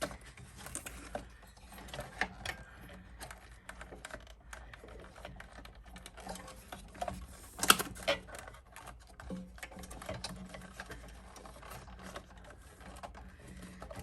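Small irregular clicks and knocks of refrigerator parts being unclipped and handled, with one sharper click about eight seconds in, over a faint steady low hum.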